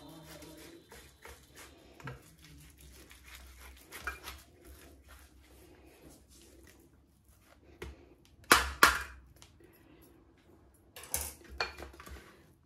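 A small handheld metal grater scraping against a stainless-steel plate as potato is grated onto it, in soft rasping strokes. Sharp metallic clinks of the grater on the plate come twice loudly about two thirds of the way in and again in a cluster near the end.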